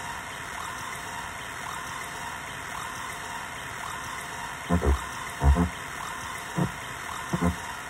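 Synthrotek Chaos NAND noise pedal played through a Chase Bliss Habit delay and out of a speaker. A steady, watery hiss with faint chirps is broken in the second half by several short, low, buzzing blips: a pair about five seconds in, a louder one just after, and more near the end.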